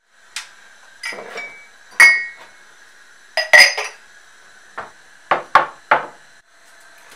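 Dishes and cups knocking and clinking as they are handled and moved about: about a dozen sharp knocks, some with a short ring, the loudest around two and three and a half seconds in, over a faint steady whine.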